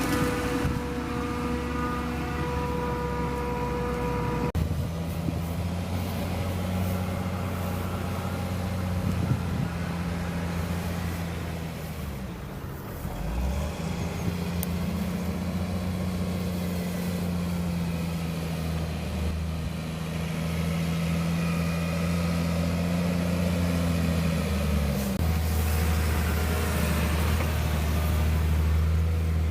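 Heavy diesel engines of maize-chopping machinery (forage harvester and tractors) running steadily. The engine note shifts about four seconds in, dips around the middle, and changes again near the end as load and speed vary.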